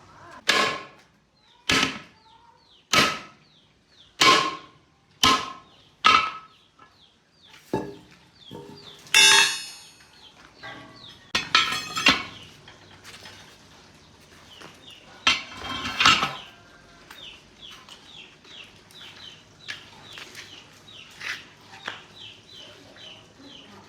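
Hammer blows on metal, about seven ringing strikes roughly a second apart, then a few irregular clanks and rattles. Birds chirp repeatedly underneath, clearest in the second half.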